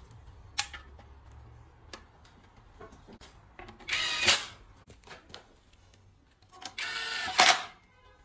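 Cordless power screwdriver driving bolts into an automatic transmission case: two short runs of its motor whine, about four and seven seconds in, with clicks and light knocks of the tool and bolts between them.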